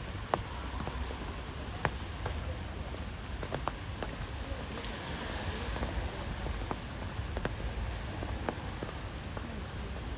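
Steady rain falling, with scattered sharp drips ticking close by at irregular intervals over a low steady rumble.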